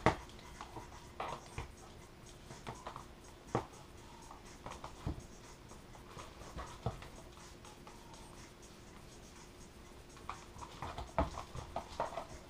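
Scattered small clicks and scratching of a hand tool working on a foam RC plane wing, busiest near the end. A faint steady hum sits underneath.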